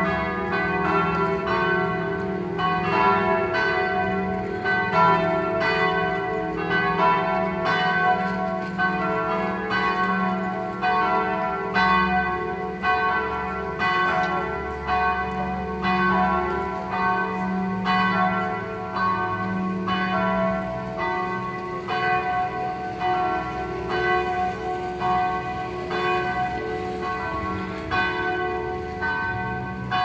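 Several church bells pealing together, struck over and over so that their ringing tones overlap without a break.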